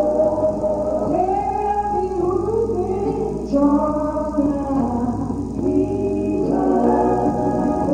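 Gospel music: a group of singers, female voices leading, holding sustained harmonized notes over a steady low accompaniment.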